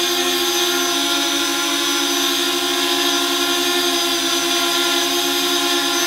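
Parrot ANAFI quadcopter hovering, its four propellers giving a steady hum of two close pitches with a hiss above, measured at about 64 to 66 dB on a sound level meter.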